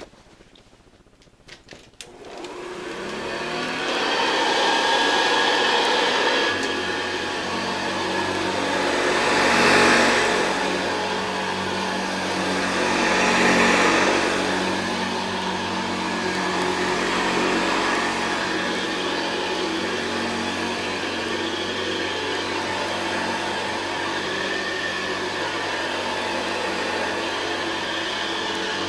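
1976 Hoover Convertible 1076 upright vacuum cleaner starting up: a few clicks, then its motor winds up to speed over about two seconds and runs steadily, swelling louder twice along the way.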